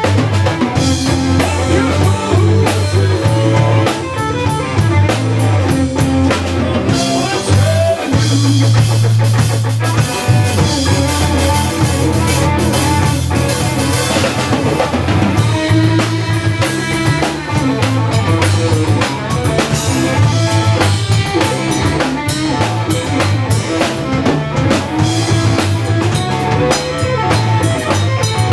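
Live blues-rock band playing an instrumental stretch: electric guitar over bass and a full drum kit with a steady beat.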